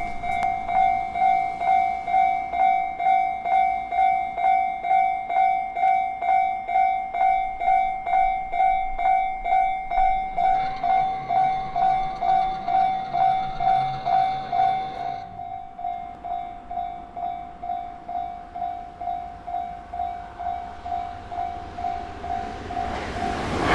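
Japanese level-crossing warning bell ringing steadily, a little under two strokes a second. About two-thirds of the way through it drops to a lower volume. At the very end a loud rushing noise from the approaching train begins.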